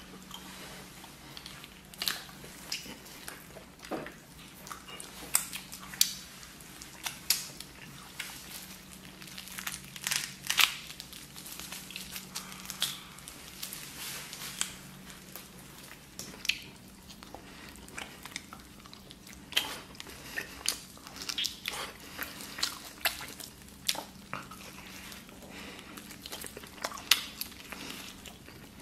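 A person eating stewed lamb on the bone: irregular bites and chewing, a string of short wet clicks and snaps at uneven intervals.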